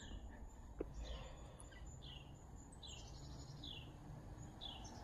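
A bird calling faintly outdoors: about six short, falling chirps, each under a second apart, over a faint low hum.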